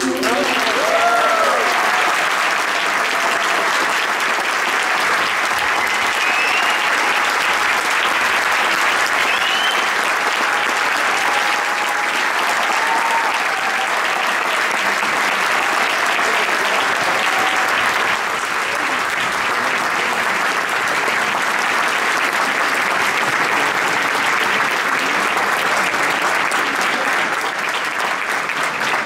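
Large audience applauding steadily, with a few voices calling out over it.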